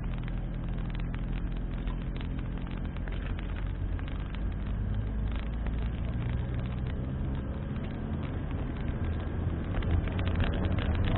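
A car driving on an asphalt road, heard from inside the car: a steady engine drone with tyre and road noise and frequent small clicks and rattles, getting a little louder near the end.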